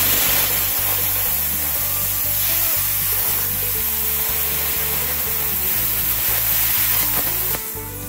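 BestArc BTC500DP plasma cutter cutting through a welded joint between two steel horseshoes, about 3/8 inch thick, at about 27 amps and 30 PSI. A loud steady hiss of the arc and air blast runs until the torch cuts off about seven and a half seconds in.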